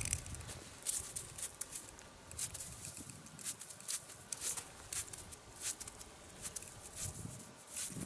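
Faint, irregular crackles and ticks of crusted snow shifting under movement, over a low rumble.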